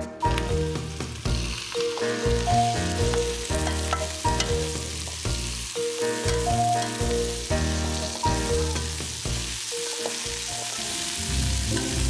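Shrimp sizzling as they fry in a wok, stirred with a spoon, with a steady hiss of hot oil.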